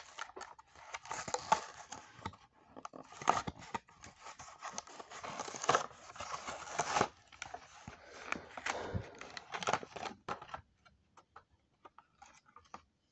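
Toy blister pack being torn open by hand: the cardboard backing card tearing and the clear plastic blister crackling and snapping in irregular rustles. About ten seconds in it thins to a few faint clicks.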